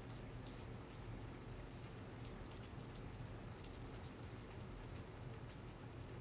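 Steady rain falling, with many scattered drop ticks over a low, steady hum.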